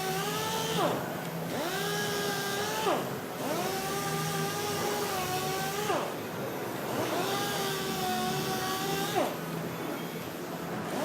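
Mirka dual-action sander running in a steady whine while sanding automotive clearcoat. Its pitch sags sharply and recovers about four times as the speed drops and picks back up.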